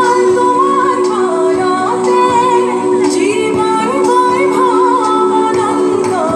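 Recorded Assamese song played for a dance: a woman singing a winding melody over steady held instrumental notes.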